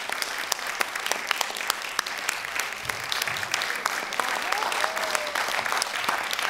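Theatre audience applauding, a dense steady clapping.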